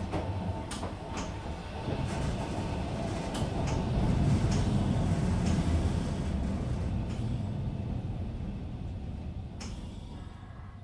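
Played-back sound effect of an electric train running: a low rumble that swells to its loudest about halfway through and then fades away, with occasional sharp clicks.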